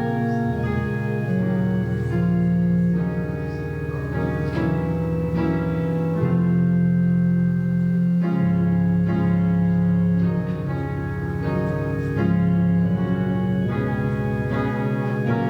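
Organ playing slow sustained chords over a held bass line, offertory music.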